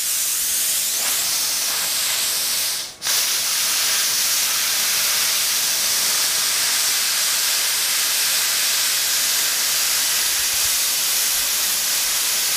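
Plasma cutter cutting plate steel: a loud, steady hiss of the air and arc at the torch. It breaks off briefly about three seconds in, then starts again.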